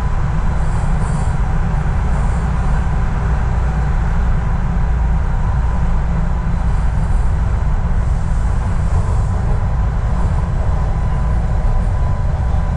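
Subway train running at speed, heard from inside the car: a steady, loud rumble of wheels on the track with a faint constant high tone.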